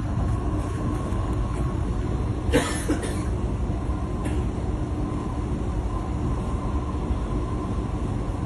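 Inside an MRT train carriage running along, a steady low rumble with a constant motor hum. About two and a half seconds in there is one short, sharp burst of noise.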